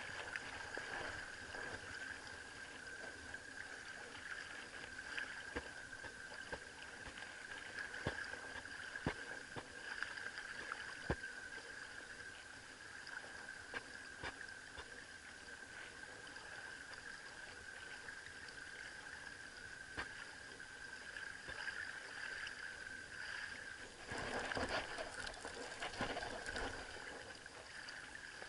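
Faint water lapping at a pebble shoreline under a steady hiss, with scattered light clicks from handling the spinning rod and reel. About twenty-four seconds in, a louder, rougher rustling lasts a couple of seconds.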